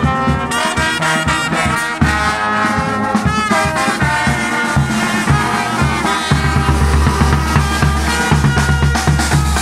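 Brass band playing live: trombones and other horns carry the tune over a snare drum. About six seconds in, a big bass drum comes in with heavy, steady beats.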